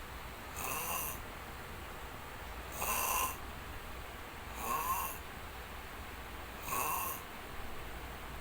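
Someone snoring in a steady rhythm, one snore about every two seconds.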